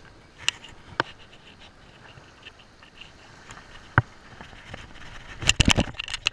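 Handling noise close to a body-worn camera while a hooked summer flounder is held and unhooked: a few sharp clicks and knocks, with a quick cluster of louder ones about five and a half seconds in, over a faint steady hiss.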